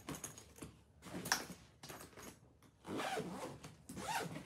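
Belongings being handled and moved about: several short scraping, sliding strokes, a few of them louder, with no clear rhythm.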